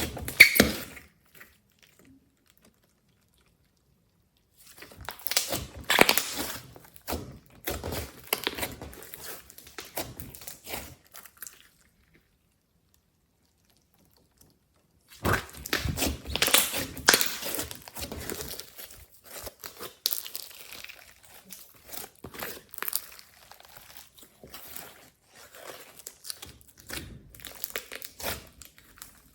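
Glossy slime being squished, stretched and folded by hand: bursts of wet clicking and crackling pops, broken by two stretches of dead silence.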